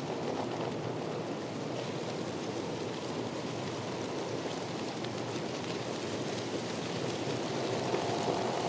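Steady rushing water noise with faint scattered ticks of drops.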